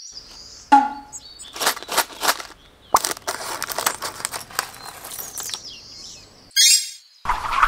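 A clear plastic polybag of Mega Construx pieces crinkling and rustling as it is handled and snipped open with scissors, with small plastic building pieces spilling out near the end. A short pitched sound comes about a second in.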